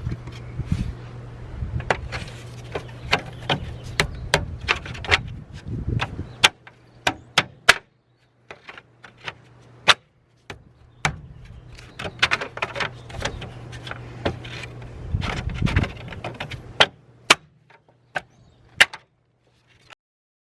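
Irregular sharp metallic clinks and clacks of hand tools against metal during work on a car's engine bay, over a steady low hum, cutting out abruptly several times.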